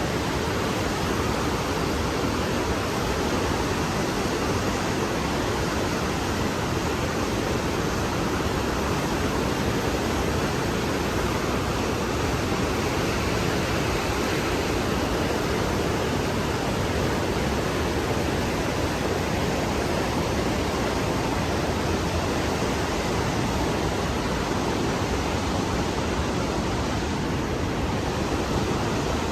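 Steady rushing roar of the Rhine Falls, a large river waterfall, with no breaks or changes.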